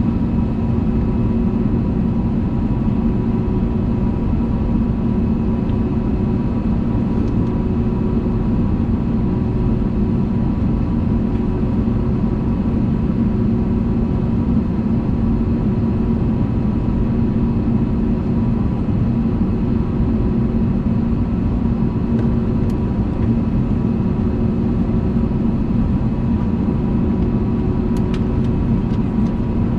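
Steady cabin drone of an Airbus A320neo in flight, its Pratt & Whitney geared turbofan engines and the airflow making an even roar with several steady hums held through it. A few faint clicks come near the end.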